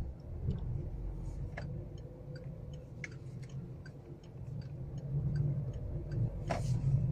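A car's turn-signal indicator clicking about three times a second over the low rumble of the engine and road noise inside the cabin, while the car turns at a junction. There is a single louder knock near the end.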